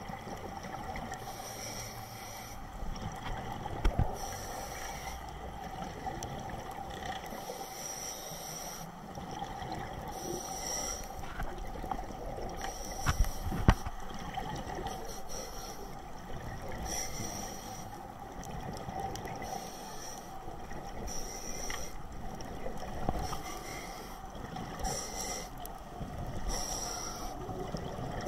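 Scuba diver breathing through a regulator underwater, a rush of air and bubbles every two seconds or so, over a steady underwater drone. Two sharp knocks stand out, about four seconds in and again around halfway.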